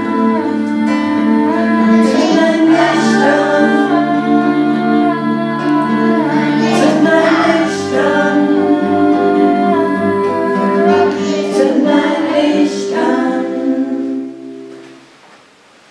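Women singing a song to classical guitar accompaniment; the song ends on a long held chord that dies away about fourteen seconds in.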